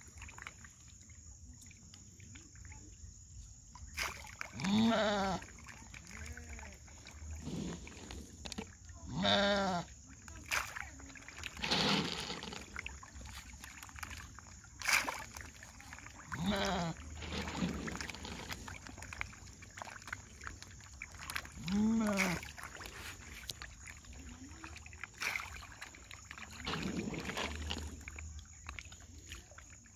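An animal calling several times with short pitched calls, over fish splashing and churning at the water surface as they feed on pellets.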